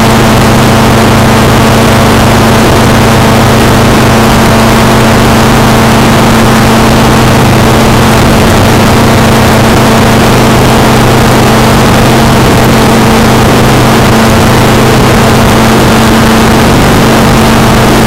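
Blade 360 CFX electric RC helicopter in flight, heard from its onboard camera: a loud, steady hum from the motor and rotor, with rushing wind noise over the microphone.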